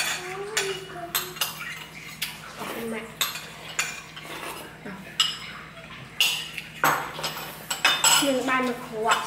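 Cutlery clinking and knocking against bowls and dishes in irregular strikes as people eat a meal.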